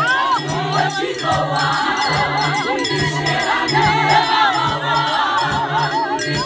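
A large group of young women singing a church song together in chorus, over a steady rhythmic beat.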